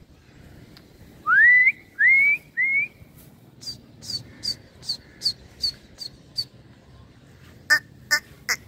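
A person whistling to a flock of flying pigeons: three loud rising whistles, one after another, then a quick run of short high chirps and a few sharp clicks near the end.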